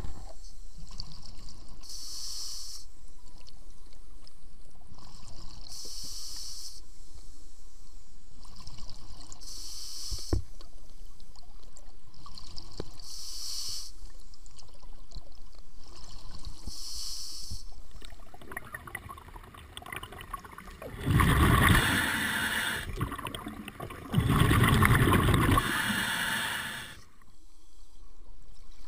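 Scuba diver breathing through a regulator underwater: a short hiss with each breath, about every four seconds, then two loud rushes of exhaled bubbles near the end.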